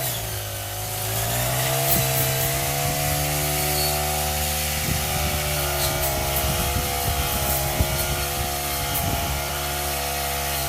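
Honda GX35 brush cutter's small single-cylinder four-stroke engine running, revving up about a second in and then holding a steady high speed.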